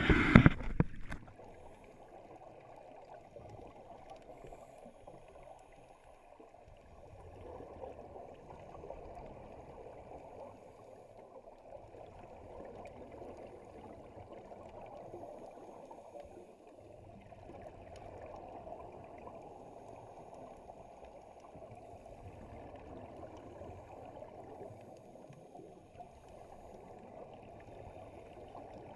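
Underwater sound through a waterproof camera housing: a muffled steady rush with the bubbling of a scuba diver's regulator exhalations, swelling and easing every few seconds. A short loud bubbling burst comes right at the start.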